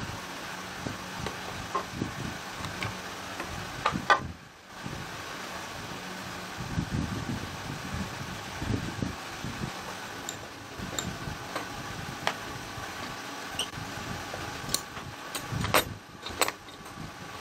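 Pine boards being set down and shifted in metal bar clamps on a workbench: scattered wooden knocks and sharp clicks over a steady hum, with a cluster of clicks near the end.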